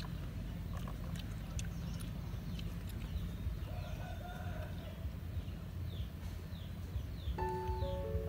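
Outdoor background with a steady low rumble and a few faint clicks, a chicken clucking briefly about halfway through, and background music with held notes coming in near the end.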